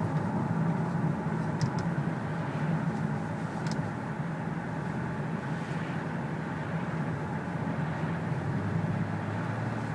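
2007 Lexus ES350's 3.5-litre V6 running steadily while the car is driven, heard from the cabin over road noise, with a diesel-like clatter that the owner takes for piston slap. A couple of faint ticks come through along the way.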